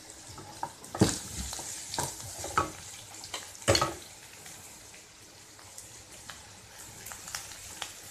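Sliced onions sizzling in oil in a stone-coated wok while a wooden spatula stirs them, the start of sautéing. The spatula scrapes and knocks against the pan a few times, loudest about a second in and again just before four seconds.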